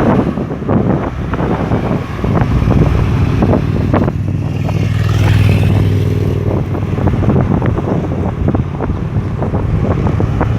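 Road traffic going past, heavily buffeted by wind on the microphone. A larger vehicle's engine passes with a steady low drone about four seconds in, fading by seven seconds.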